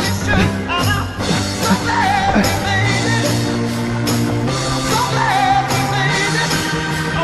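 Background rock music with a sung vocal over a bass line and a steady drum beat.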